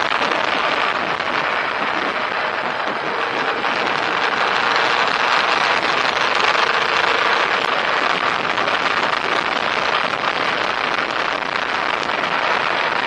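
Steady road and tyre noise with some wind, heard from inside a moving car's cabin as it drives along at speed.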